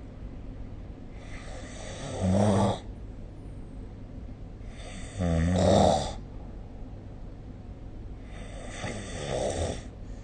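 A sleeping person snoring: three snores about three and a half seconds apart, each lasting one to one and a half seconds, the last one fainter, over a steady low hiss, recorded on a phone.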